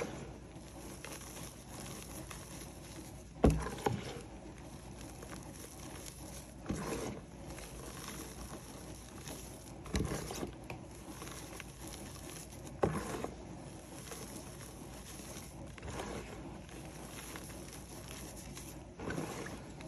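Hands pressing and squeezing into a heap of powdered grey chalk reforms, giving a soft, gritty crunch every three seconds or so, the loudest about a third of the way in.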